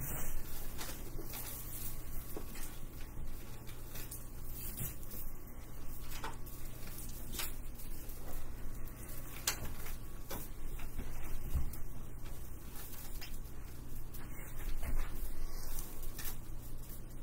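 Scattered light knocks, clicks and rustling of objects being handled close to the microphone, over a steady low hum.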